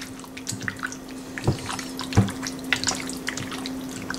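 Hand squishing raw chicken pieces through a thick curd, turmeric and salt marinade in a glass bowl: irregular wet squelches and clicks, with two louder knocks about one and a half and two seconds in. A steady low hum runs underneath.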